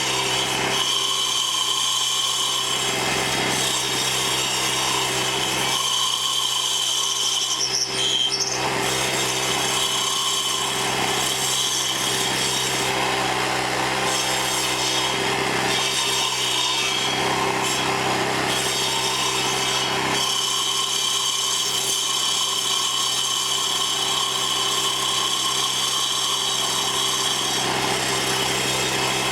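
Troy-Bilt sidewalk edger's engine running under load while its carbide-tipped saw blades grind into a cedar stump. The engine hum is steady, with rasping cutting noise and a high whine that drops out briefly twice.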